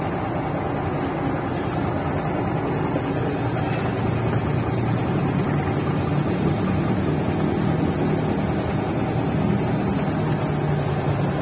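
Shacman truck's diesel engine idling steadily, heard from inside the cab, with a short high hiss about two seconds in.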